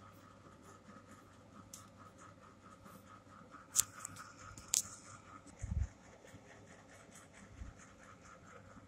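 Faint scratchy handling sounds of a bristle paint brush working on a hammer head over cloth, with two sharp clicks a second apart near the middle and a dull thump just after, under a faint regular ticking.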